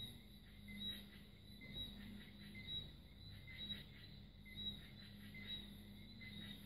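Faint squeaks and scratching of a marker tip rubbed back and forth on paper to fill in a solid black area, about one squeak a second, over a low steady hum.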